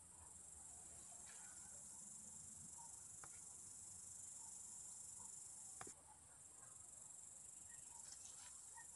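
Faint, steady high-pitched chirring of insects in the garden, with a faint click about three seconds in and another near six seconds.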